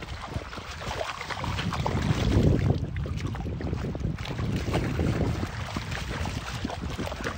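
A hooked steelhead splashing and thrashing in shallow river water, mixed with wading splashes, loudest about two to three seconds in. Wind rumbles on the microphone throughout.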